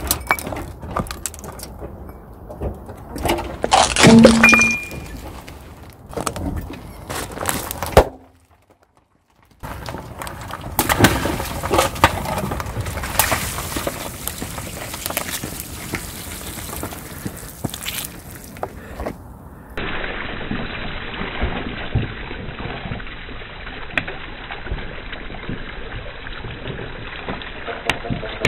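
Car tyre crushing ceramic bowls: a run of cracks and crunches, loudest about four seconds in, where one piece rings briefly as it breaks. After a short silence, a car rolls over long water-filled balloons, which burst with sharp pops and splashing water, followed by a steady duller stretch.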